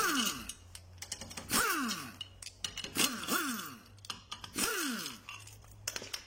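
Impact wrench spinning out wheel bolts: about four short runs roughly a second and a half apart, each ending in a falling whine.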